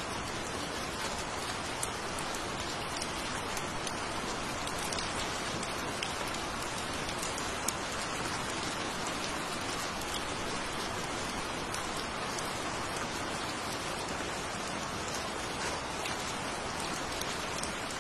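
Steady rain falling, with scattered sharper drop ticks.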